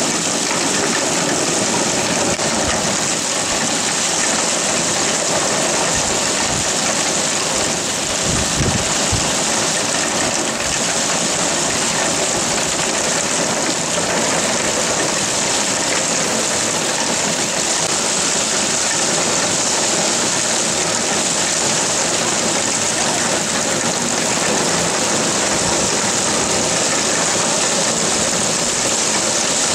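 Heavy rain pouring steadily, a dense even hiss, with a brief low thump about eight seconds in.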